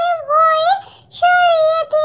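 A high-pitched, childlike singing voice holding and bending sustained melodic notes in short phrases, with a brief pause about a second in.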